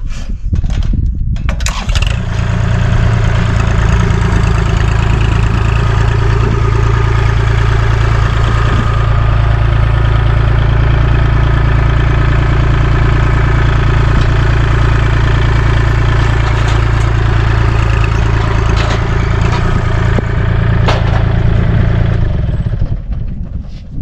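Kubota compact tractor's diesel engine cranking and catching about two seconds in, then running steadily while the tractor is driven, fading out near the end.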